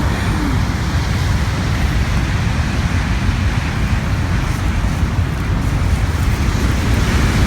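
Ocean surf at high tide, a steady deep rumble of breaking waves.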